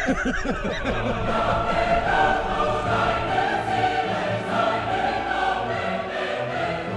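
Background choral music: voices singing long, held chords, with wavering notes at the start.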